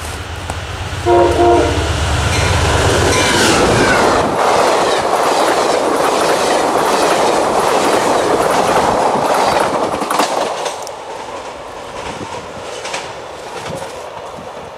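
Amtrak Carolinian passenger train passing at speed. The diesel locomotive's multi-tone air horn sounds for about two seconds as it approaches. Then the stainless-steel passenger cars rush by with a steady clickety-clack of wheels over the rails, fading away after about ten seconds as the train recedes.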